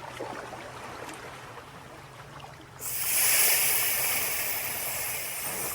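A sea-wave sound effect: a smooth rushing hiss like surf washing in starts suddenly about three seconds in and slowly fades. Before it, a faint steady low hum.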